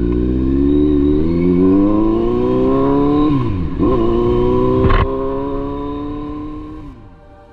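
Kawasaki Z900's inline-four engine accelerating: revs climb, drop sharply at a gear change about three seconds in, climb again, then fall away as the bike slows and fade near the end, with a brief knock about five seconds in.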